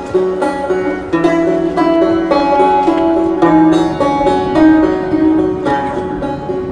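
Instrumental background music played on plucked strings, a quick run of picked notes.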